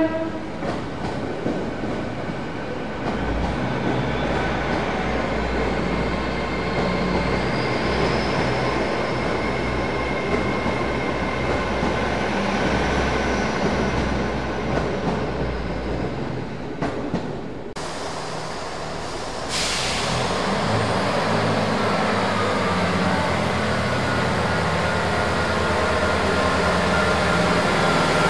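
LNER Class 800 Azuma bi-mode train 800205 running through the station under diesel power, a steady rush of wheels and underfloor engines as its coaches pass. The sound breaks off about two-thirds of the way through. Then a Northern Class 158 diesel multiple unit moves along the platform with a low, steady engine drone.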